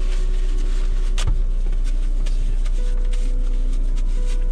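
Steady low hum of a car engine idling, heard from inside the cabin, with a single sharp knock about a second in.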